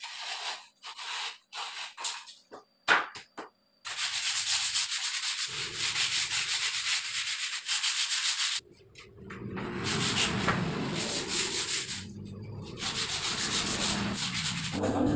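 Gypsum-board strip being sanded or rubbed along its edge by hand: a few short scrapes and taps, then three runs of rapid back-and-forth scraping strokes of a few seconds each, with brief pauses between them.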